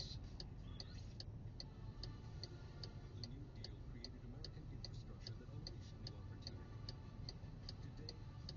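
Faint, regular ticking, roughly two to three ticks a second, over a low steady hum.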